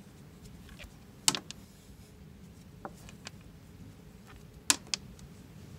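Rope-handling sounds as a thin heaving line is worked into a clove hitch around a braided mooring line: a handful of sharp, separate clicks and taps over a low steady background.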